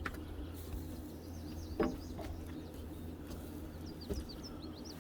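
Birds chirping in short quick bursts over a low steady hum, with a single sharp knock a little under two seconds in.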